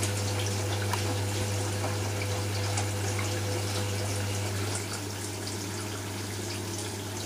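Hoover washing machine draining: the drain pump hums steadily with water sloshing and gurgling while the drum turns. About five seconds in the drum motor stops and it gets a little quieter, leaving the pump humming on.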